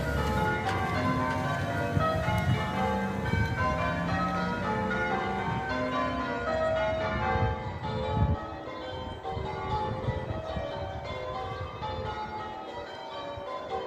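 Church bells being rung in changes: a peal of several tuned bells striking one after another in quick succession, their tones overlapping and ringing on.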